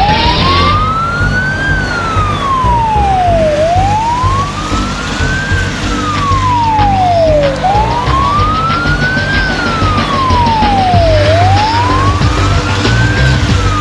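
Fire engine siren sounding a slow wail, rising and falling four times about every four seconds, over a low rumble.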